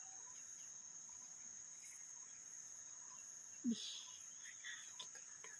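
Steady, high-pitched insect drone, a forest chorus of crickets or cicadas, holding one pitch throughout. A short faint call cuts in about two-thirds of the way through.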